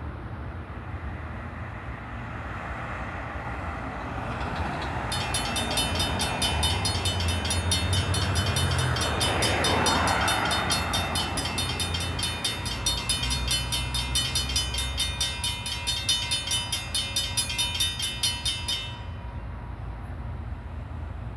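Railroad crossing bell ringing in a fast, steady repeat as the warning lights flash and the gates come down, warning of an approaching train. It starts about five seconds in and stops a couple of seconds before the end, once the gates are fully lowered. Cars pass through the crossing around the middle.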